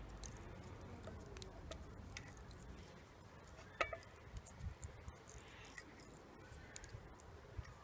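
Faint handling sounds of fingers wrapping elastic thread round soft shelled mussels: scattered small clicks and soft squishes, with one sharper click a little before the middle.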